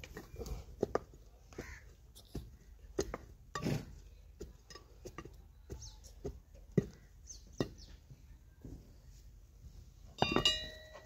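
Hands scraping and scooping loose soil and grit out of a small hole in dry, stony ground, making scattered small knocks and scrapes at an uneven pace. Near the end comes a louder, short clink that rings briefly.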